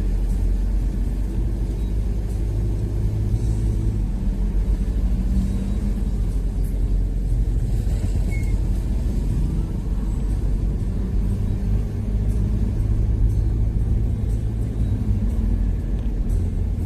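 A car driving, heard from inside the cabin: a steady low engine and road rumble with a faint engine tone that drifts slightly in pitch.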